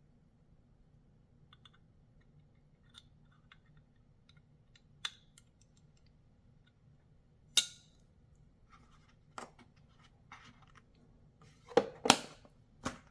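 Scattered small clicks and several sharp metallic snaps from handling a titanium-handled folding knife with an Elmax blade. The loudest snap comes about seven and a half seconds in, and a quick cluster of three snaps comes near the end.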